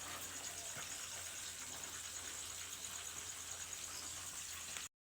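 Steady background hiss with a faint low hum underneath, cutting off abruptly near the end.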